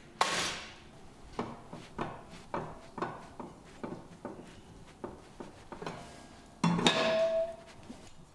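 Hand-held wooden block striking a metal spatula blank clamped in a bench vise, bending the spatula body. There is a sharp first blow, then light taps about two a second, and a louder, longer knock with a ring to it near the end.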